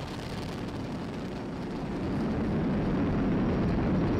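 Falcon 9 rocket's nine Merlin 1D first-stage engines at full thrust during ascent: a steady, deep rumbling noise that grows louder about two seconds in.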